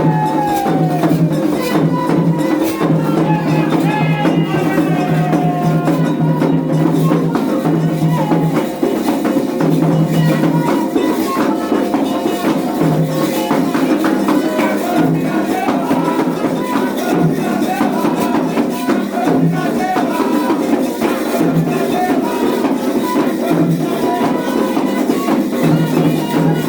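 Lively percussion music with shakers and drums, played continuously, with people's voices over it.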